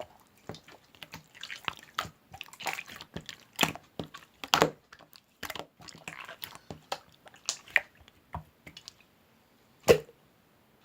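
Close-miked ASMR eating sounds: irregular wet chewing and mouth clicks, with one sharp, loud click near the end.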